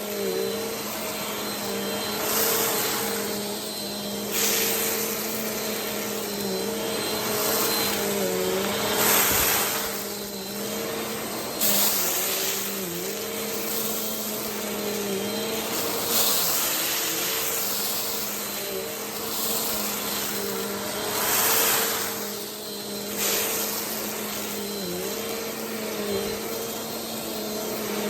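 Vacuum cleaner running continuously while picking up rice. Its motor hum dips briefly in pitch several times, and louder surges of rattling hiss come every few seconds as the rice is drawn in.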